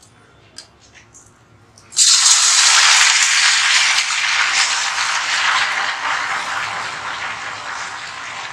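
Rice and gram flour murukku dough pressed into hot oil in a steel kadai: after a few faint clicks, a loud sizzle starts suddenly about two seconds in as the strands hit the oil and froth up, then slowly eases off.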